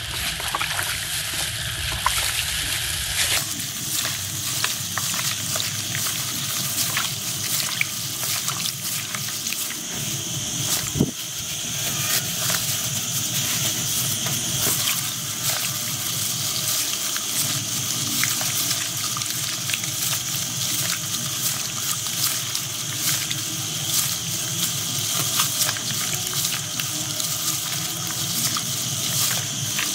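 Gloved hands squeezing and mashing peeled bananas in a basin of water: a steady, irregular splashing and squelching of water and pulp.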